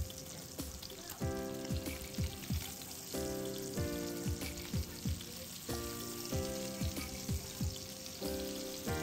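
Corbina fillet pieces sizzling as they fry in butter in a hot cast-iron skillet, a steady crackling hiss. Background music with chords and a steady beat of low drum hits plays over it. The drum hits are the loudest sound.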